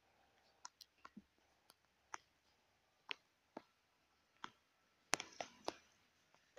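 Kittens scuffling on a terrazzo stone floor: faint, scattered light clicks and taps of their paws and claws, with a quick run of louder clicks about five seconds in.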